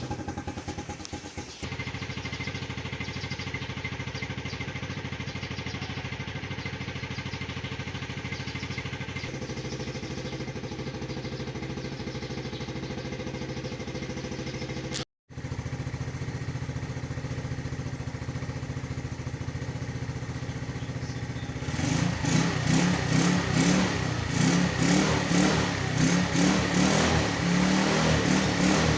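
Yamaha Nouvo Z scooter engine, modified with a 24 mm Nibbi carburetor, idling steadily. The sound cuts out briefly about halfway through. In the last seven seconds the engine is blipped repeatedly, louder, in short revs.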